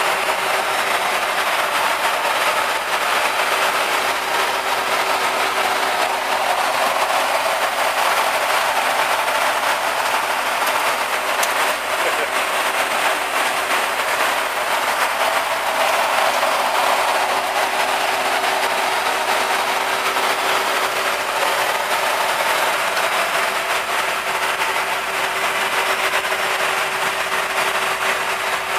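Steady airflow and engine noise in a jet airliner's cockpit at high-altitude cruise, an even hiss with a constant hum underneath.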